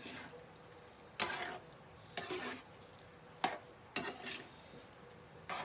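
Metal spatula stirring and scraping through a saucy chicken and bean stew in a metal wok, in about six short separate strokes roughly a second apart.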